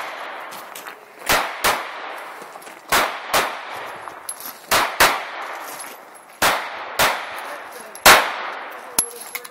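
Glock 19 9mm pistol fired in pairs of quick shots (double taps), four pairs a few seconds apart, then one loud single shot near the end. Each shot is followed by a short ringing echo.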